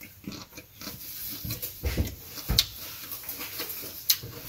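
Wet chewing and lip-smacking of a person eating soft ripe mango, in irregular smacks and clicks.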